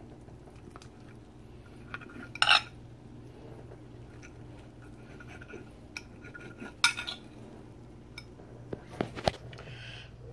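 Metal fork clinking and scraping against a ceramic plate while cutting into a stuffed lasagna noodle: a few sharp clinks, the loudest about two and a half seconds in and another near seven seconds.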